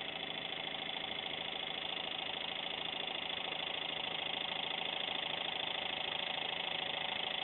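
Small 12 V DC motor spinning a magnet flywheel past a bifilar pickup coil, running at a steady speed with a constant hum while the coil charges capacitors as its load.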